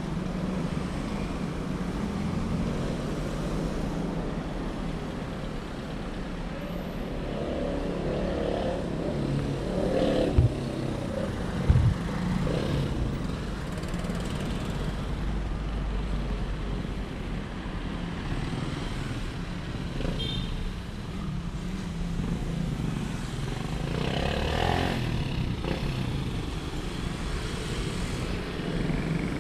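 Busy street traffic, with cars and motorcycles passing steadily. There are two brief thumps about ten and twelve seconds in, and a louder vehicle passes near the end.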